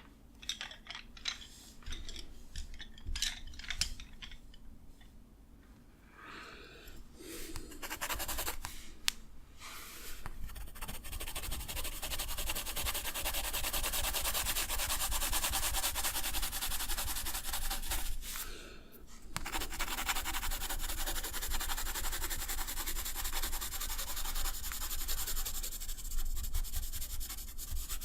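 A drawing tool working on paper: several short scratchy strokes, then from about ten seconds in a long run of fast back-and-forth rubbing across the paper, with a brief pause a little past halfway.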